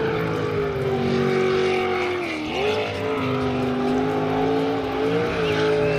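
Jet sprint racing boat's engine running hard at high revs, its pitch dipping briefly about two and a half seconds in and then climbing again.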